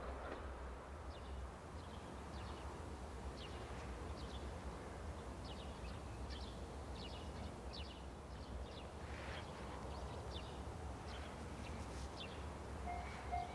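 Quiet countryside ambience: small birds chirping in short repeated calls over a low steady rumble. Near the end, a pulsed two-tone bell starts ringing, typical of a Japanese railway level-crossing alarm.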